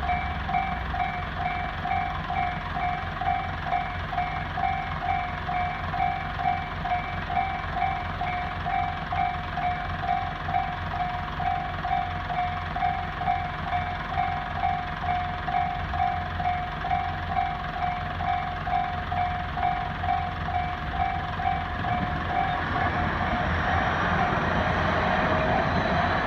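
Japanese railway level crossing warning bell ringing: an electronic ding repeating at a steady, even pace. Near the end a train's running noise builds up and grows louder as it approaches the crossing.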